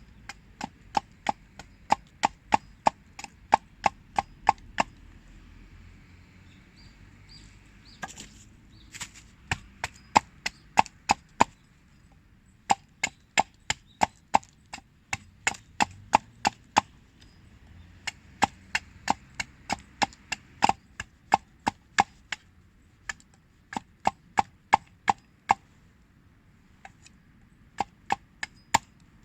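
Wood being struck over and over, sharp knocks at about two to three a second in runs with short pauses, like firewood being chopped or split for the fire.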